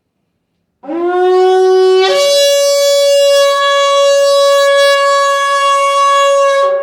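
Kudu-horn shofar blown in one long call: it starts on a lower note, jumps up to a higher note about two seconds in, and holds it steadily until it cuts off near the end.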